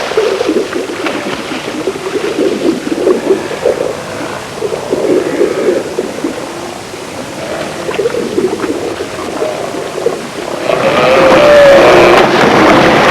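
Steller's sea lions calling: many overlapping, wavering low calls. About eleven seconds in, a louder rush of noise comes in over them.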